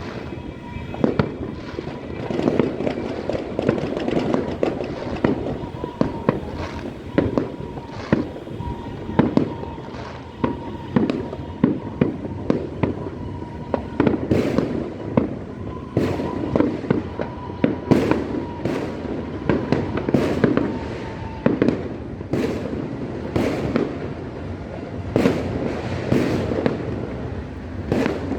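New Year's Eve fireworks and firecrackers going off all around: an irregular run of sharp bangs, some close and loud, over a continuous rumble and crackle of more distant ones. The bangs come thicker and louder in the second half.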